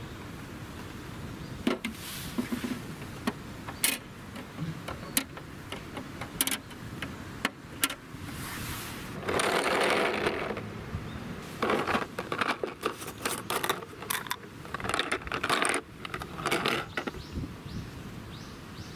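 Small plastic toys and hard balls being handled and set down on stone: scattered clicks and knocks, a short scraping rattle about ten seconds in, and a quick run of clicks and rattles after it.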